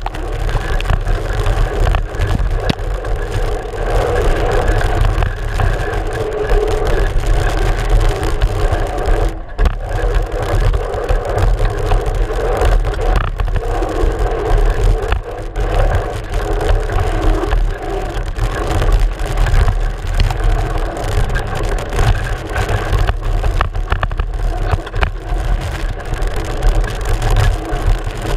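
Mountain bike riding fast down a dirt trail, heard from a GoPro in its housing on the front fork: a steady loud rush of wind and tyre noise with a low rumble, broken by frequent knocks and rattles from bumps in the trail.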